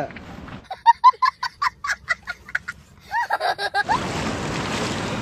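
A chicken clucking in a quick run of short, high notes for about two seconds, then a higher squawk. From about four seconds in, a steady rush of river water flowing over rocks.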